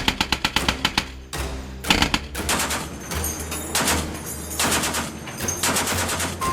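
Rapid automatic gunfire, a burst of about ten shots a second in the first second and further shots soon after, over background music with a steady low drone.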